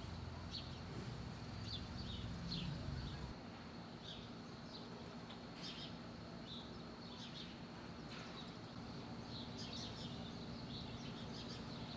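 Outdoor background with birds chirping in short, scattered high calls. A low rumble is heard during the first three seconds or so, then fades out.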